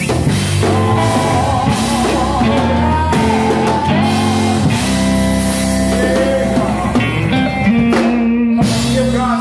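A man singing a gospel song into a microphone over live band accompaniment, with long held notes whose pitch wavers.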